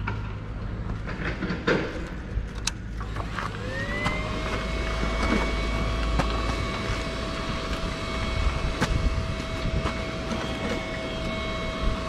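A motor spins up to a steady whine about three and a half seconds in and holds it at one pitch, over a low steady rumble and scattered clicks.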